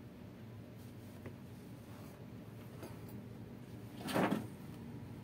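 A short scraping slide about four seconds in, with a few faint taps before it: the jigsaw's plastic housing half being handled on the workbench.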